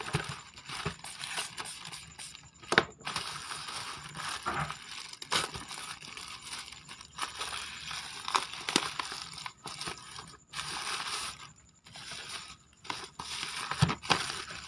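Plastic shipping bag crinkling and rustling irregularly as hands work it open, with a few sharp clicks and knocks.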